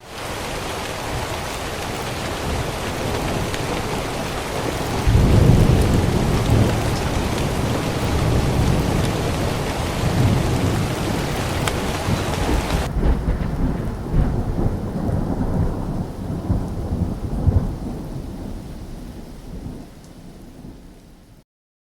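Thunderstorm sound effect: steady rain hiss with deep rolling thunder swelling about five seconds in. The rain cuts off suddenly about thirteen seconds in, leaving low thunder rumbling and fading away near the end.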